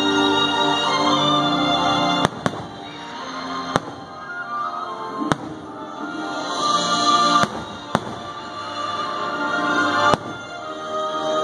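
Fireworks shells bursting: about six sharp bangs, spaced a second or two apart, over steady background music.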